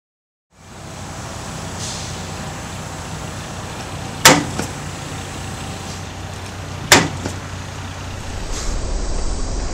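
Chevrolet S-10 pickup's engine running as it backs up, with two sharp knocks about two and a half seconds apart as the rear bumper strikes a bollard post. A heavier low rumble sets in near the end.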